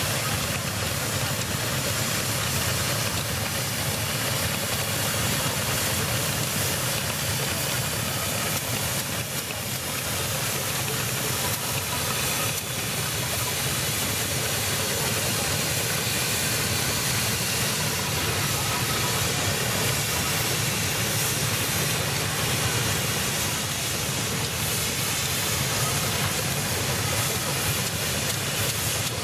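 Steam traction engine running with a steady hiss of steam.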